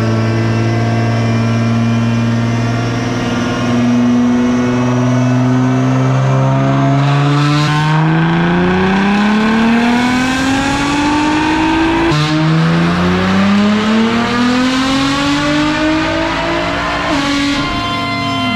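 Nissan GT-R's twin-turbocharged 3.8-litre V6 making a full-throttle pull on a chassis dyno: the revs climb steadily, drop once about twelve seconds in at a gear change, climb again, then fall away as the throttle is lifted near the end.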